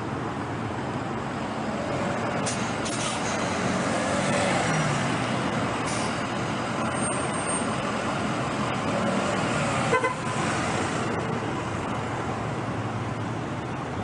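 Steady road traffic noise from vehicles moving through city streets, with a brief vehicle horn toot about ten seconds in.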